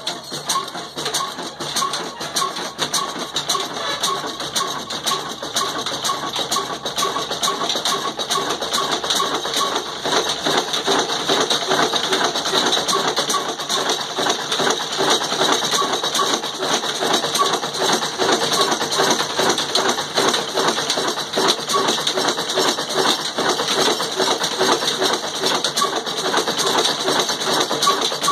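An old black 'desi' Ruston Hornsby-type diesel engine with a heavy flywheel, freshly started and running at a steady, even beat, getting louder over the first ten seconds or so.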